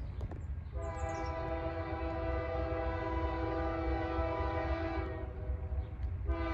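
Air horn of the approaching Union Pacific freight's lead locomotive, sounding a multi-note chord over a low rumble. One long blast lasts about four and a half seconds, and a second long blast starts about a second after it ends: the opening of a grade-crossing horn signal.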